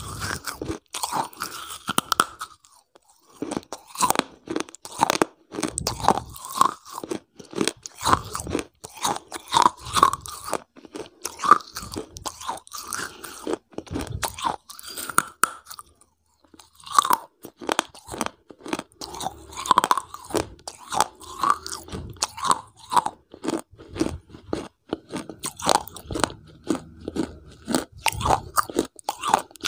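A person biting and chewing a brittle, pale, shell-like piece right at a lavalier microphone: dense, crisp crunches with short pauses about three seconds in and again near the middle.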